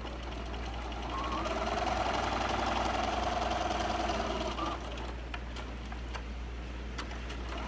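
Electric sewing machine stitching at speed: its motor whine climbs about a second in, holds steady, and stops at about four and a half seconds. A few light clicks follow.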